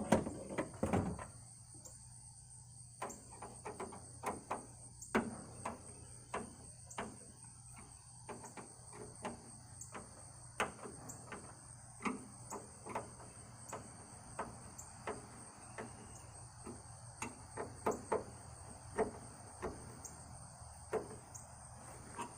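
Irregular clicks and light knocks of hand work on a pickup's grill-light wiring and brackets, a few each second at times, over a steady high-pitched insect trill.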